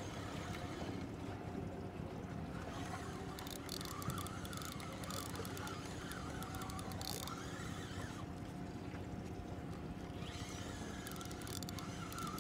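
Boat motor running steadily in gear at trolling speed, with short bursts of rapid ticking every few seconds.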